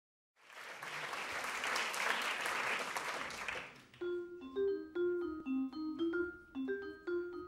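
Audience applause for about three seconds, fading out; then a vibraphone begins alone, playing a melody of single ringing notes struck with mallets.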